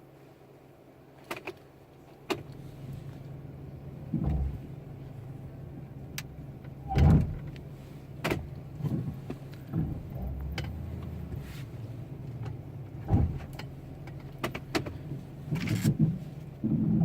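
Brake noise from a 2015 GMC Sierra pickup: several short noises as the brakes are applied, the loudest about seven seconds in and a cluster near the end, over the steady low hum of the running truck. The noise is new, which the owner takes to be a brake problem.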